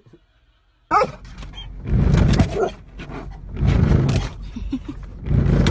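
A dog barking in repeated loud bouts inside a car as it goes at the windshield wipers from the dashboard, starting suddenly about a second in.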